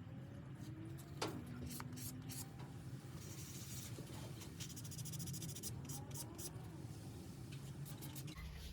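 Faint scratching and rubbing handling noises over a low hum, with one sharp click about a second in.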